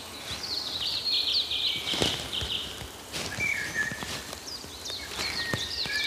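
Woodland birds singing: many short high chirps, with a rapid run of chirps in the first two seconds and sparser calls after. A few footsteps on a forest track sound under the birdsong, the clearest about two seconds in.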